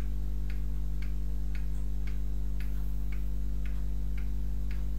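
Steady, even ticking, about two ticks a second, over a constant low electrical hum.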